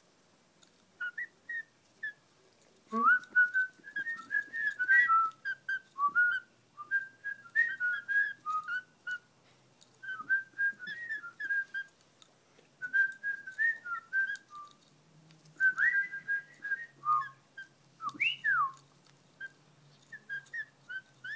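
Warbling whistled notes in quick runs with short pauses, starting about three seconds in, with a fast falling glide near the end and faint clicks in between.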